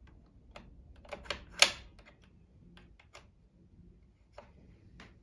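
Light, irregular clicks and ticks, about ten in all, from the Pfaff Synchrotronic 1229's built-in needle threader being worked by hand with the lever down as thread is caught at the needle. The loudest click comes about one and a half seconds in.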